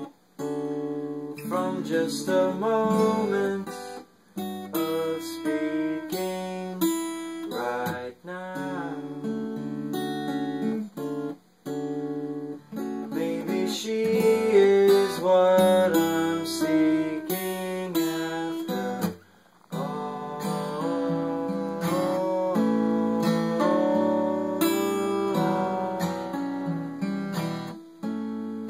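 Acoustic guitar being played, chords and single notes, with a few brief pauses between phrases.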